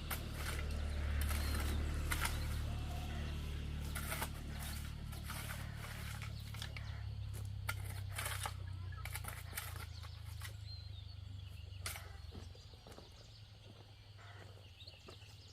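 A low steady hum that slowly fades away over the last few seconds, with scattered light clicks and knocks.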